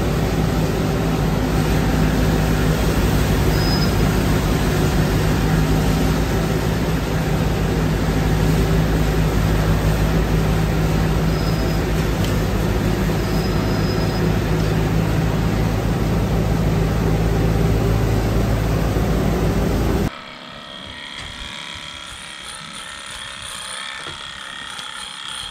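Straw bale chopper-blower running with a steady, loud drone, several held tones over a dense rumble, as it shreds a bale and blows the chopped straw out of its spout. About twenty seconds in, the sound cuts off suddenly to a much quieter, mixed background.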